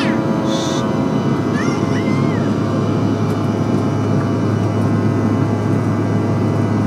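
Steady jet engine drone and airflow hiss inside the passenger cabin of a Bombardier CRJ-1000 climbing after take-off, from its two rear-mounted General Electric CF34 turbofans, with a deep hum underneath.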